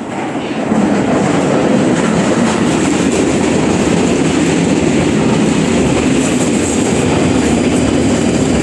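London Underground train running into the platform past the listener: a loud, steady rumble of wheels on rails that swells over the first second, then holds.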